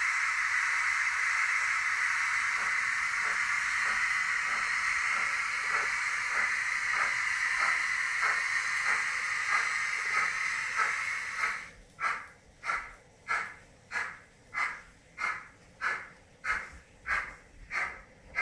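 Digital sound module of a Märklin BR 23 model steam locomotive: a long, steady steam hiss, then about two-thirds of the way through it gives way to slow, even steam chuffs, about three every two seconds, as the model runs.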